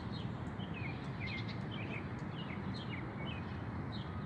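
Steady low outdoor background rumble, with many short high chirps scattered over it, several a second.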